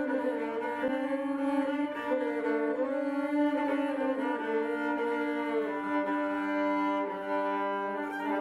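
Violin playing a held low drone note with a slow, wavering melody above it. The harmony shifts to new notes about six seconds in.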